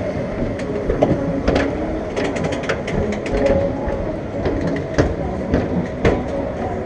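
Steady rumbling clatter with frequent sharp metal clanks and knocks, and footsteps on the flat ride's metal chequer-plate boarding platform.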